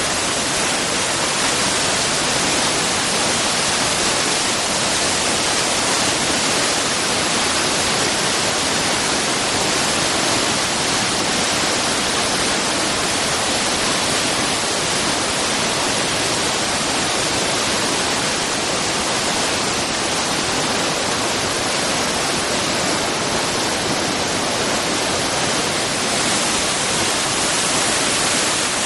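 Tietê River waterfall: water pouring and rushing with a loud, steady roar of noise that does not change.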